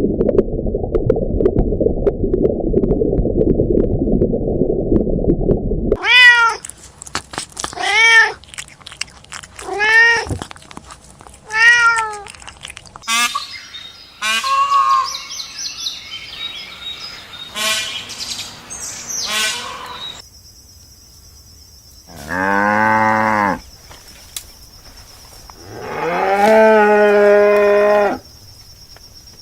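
For the first six seconds, a dense low grunting noise from pigs. Then a domestic cat meows repeatedly, about one meow every two seconds. Near the end, two long, low moos from a cow.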